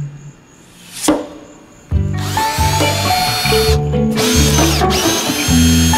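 Cordless drill with a twist bit boring a mounting hole for a navigation light through the carpeted boat deck; the motor starts about two seconds in with a steady whine and stops briefly twice, under loud background music.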